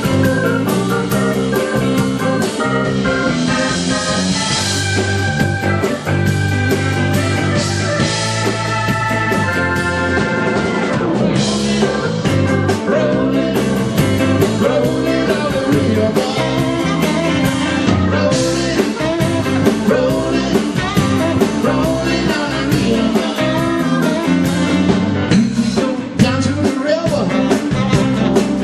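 A live rock band playing: electric guitar, electric bass and drum kit, with cymbal crashes every several seconds.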